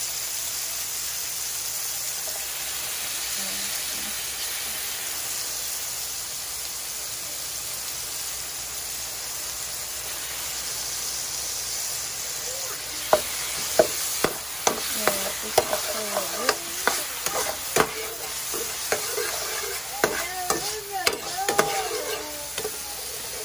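Diced onion and fresh tomatoes sizzling steadily in olive oil in a frying pan. From about halfway, a metal spoon stirs them, clicking and scraping against the pan.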